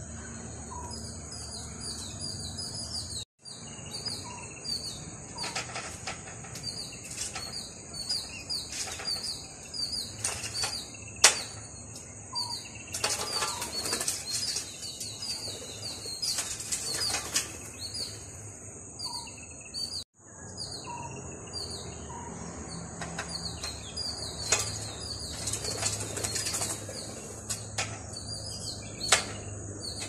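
Greater flameback woodpecker at a mirror: flurries of wing flapping and scattered sharp taps, two of them loud. Behind them run a steady high insect buzz and short bird chirps repeated several times a second.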